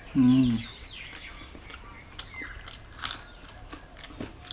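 A short closed-mouth "mmm" of relish, then quiet eating sounds: scattered soft clicks and mouth smacks while chewing chicken and naan by hand. Faint high chirps sound now and then behind.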